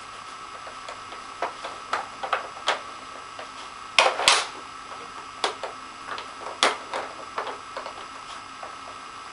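Irregular clicks and knocks of a Nina Ottosson Dog Twister plastic treat puzzle as a dog noses and paws at its bone blocks and sliding lids, with the loudest cluster of knocks about four seconds in.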